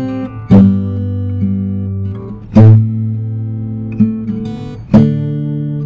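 Acoustic guitar strumming chords, one struck about every two seconds and left to ring.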